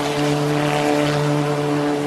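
Homemade ultralight helicopter in flight: its engine drones at a steady pitch under the whoosh of the spinning main rotor.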